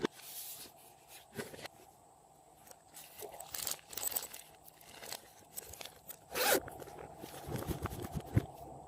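Glossy slime being worked by hand: scattered soft squelches and crackles, the loudest about six and a half seconds in.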